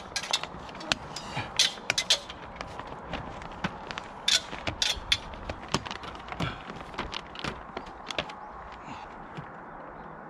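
Plastic greenhouse film crackling and clicking irregularly as it is handled and pulled taut, over a faint steady hiss.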